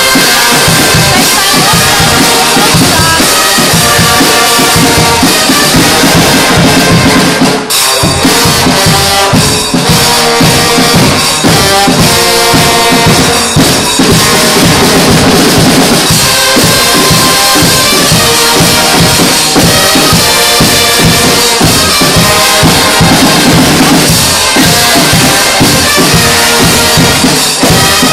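Loud brass-and-drums band, Guggenmusik style, playing music: sustained horn chords over a steady beat of bass drum and snare. Everything stops briefly about eight seconds in, then the band comes back in.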